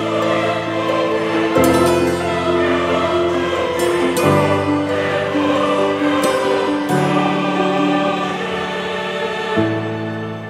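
Slow background music of long held chords, changing about every two and a half seconds.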